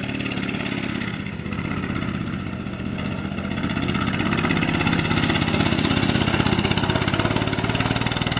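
Mini bike's small single-cylinder engine running as it rides across grass, getting louder about halfway through as it comes nearer.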